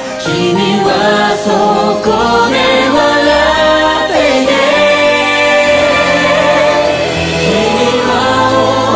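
A French-language song plays, with singing over instrumental backing.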